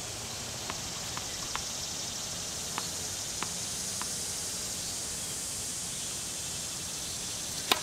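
Tennis ball bounced a few times on a hard court, light sharp taps through the first half, then a loud crack of the racket striking the ball on the serve right at the end, over a steady high outdoor hiss.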